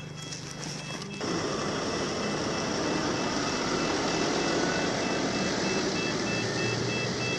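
A small camera drone's motors and propellers spin up about a second in and then run steadily, ready for take-off. A faint, regular beeping, about three beeps a second, runs alongside in the second half.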